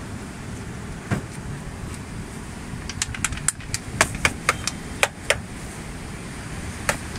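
Plastic sauce squeeze bottles being squeezed over a plate of prawn wade, making sharp clicks and spurts: one about a second in, then a quick run of eight or so in the middle. A steady low outdoor rumble lies beneath.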